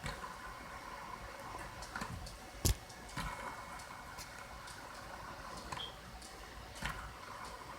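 Ceiling fan running with a low steady hum, broken by irregular ticks and clicks; the loudest is a sharp click about a third of the way in.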